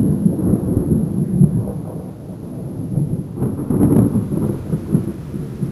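Thunder rumbling, swelling into a louder clap about three and a half to four seconds in.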